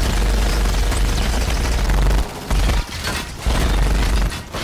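Action-film battle sound effects: rapid gunfire and explosions over a heavy low rumble. The rumble breaks off briefly several times in the second half.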